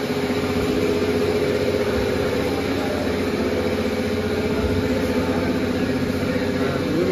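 A motorcycle engine idling steadily.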